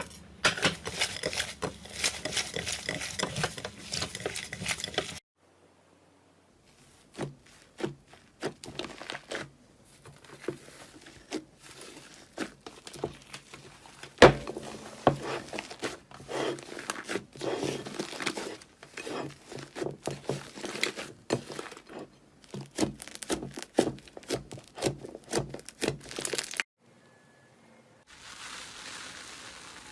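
Slime being squeezed and poked by hand, making sticky crackles and pops. The crackling is dense at first, stops about five seconds in, and then comes back as separate sharp pops and clicks.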